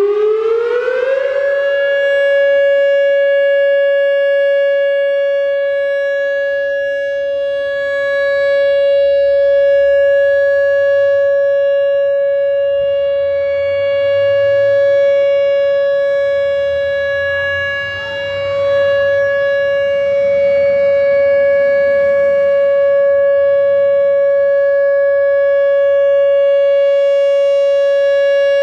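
Whelen WPS-3016 electronic outdoor warning siren, run by an ESC-2020 controller, sounding its steady alert tone set at 560 Hz. The pitch rises for about the first second, then holds one steady note, swelling and fading a little in loudness.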